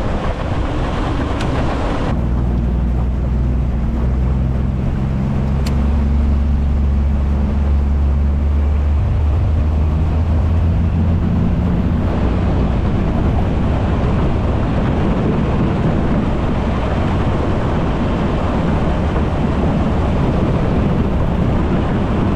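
25 hp Mercury outboard driving a 14 ft aluminium jon boat on plane, a steady engine drone mixed with wind on the microphone and water rushing under the hull. The engine's tone is plainest through the first half. Later wind and spray noise covers most of it.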